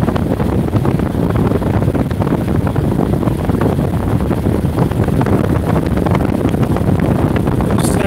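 Khaitan Galaxy 12-inch table fan running at its highest speed, its air stream blowing straight onto the microphone as a steady rushing wind noise.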